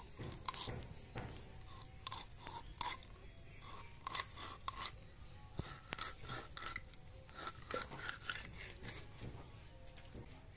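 Rohu fish being cut apart on an upright boti blade: irregular crunching and scraping as the blade goes through the head, gills and bone.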